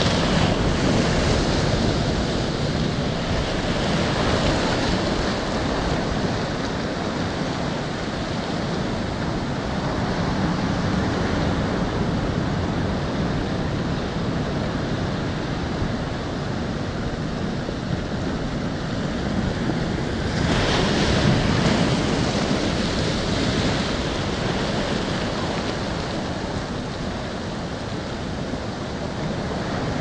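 Ocean surf breaking against a stone breakwater and washing in over the shallows, a continuous rushing that swells louder about two-thirds of the way through, with some wind on the microphone.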